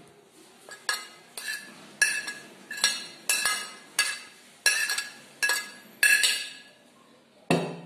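A metal spoon clinks again and again against a ceramic plate and a steel bowl as it scrapes chopped onions off the plate. The quick run of sharp, ringing taps comes two or three a second, and a single heavier knock follows near the end.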